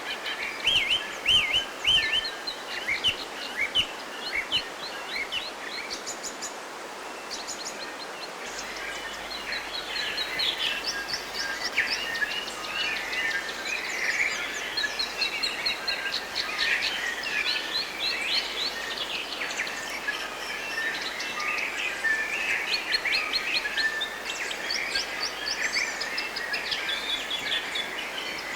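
Several forest birds chirping and singing together over a steady background hiss. Sharp separate chirps come first, and the chorus grows denser from about nine seconds in.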